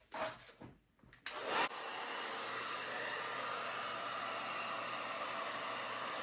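Hair dryer switched on with a click about a second in, then blowing steadily on its high-fan, cool-air setting.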